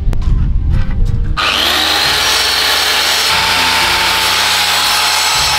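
A power saw cutting through a wooden board, starting about a second and a half in after a few knocks and running steadily.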